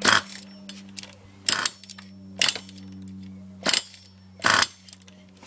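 Nitro RC buggy's .28 BigBlock glow engine on a first start attempt: five short, loud, sharp bursts roughly a second apart over a steady low hum.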